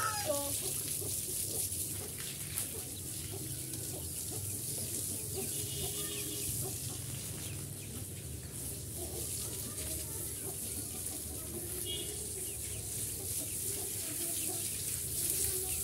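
Water spraying from a garden hose onto a concrete roof floor, a steady hiss and splash. Chickens cluck faintly a couple of times.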